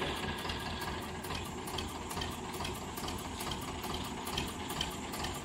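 Heavy-machine diesel engine idling steadily, with a faint, even, fast ticking over it.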